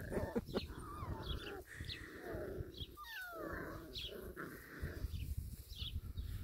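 Young miniature schnauzer puppies play-fighting, making small squeals and growls, with several short falling squeals in the first half.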